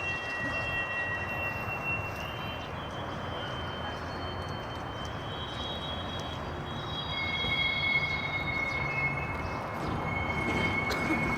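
Long, high-pitched metallic squealing like metal grinding on metal, a few held tones that give way to one another: a pair for the first two seconds, a higher one from about three seconds in, then a lower single tone from about seven seconds on, over a steady rushing rumble.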